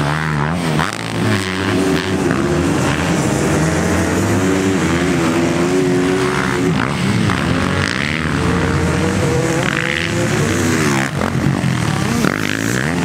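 Motocross bike engines revving hard over sand jumps. Their pitch climbs and drops again and again as the riders get on and off the throttle, with more than one bike heard at once.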